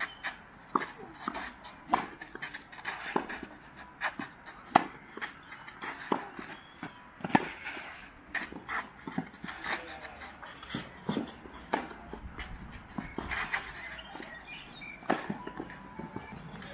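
Tennis rally on a clay court: sharp knocks of racket strings striking the ball and the ball bouncing, one after another every second or so, mixed with the players' footsteps on the clay.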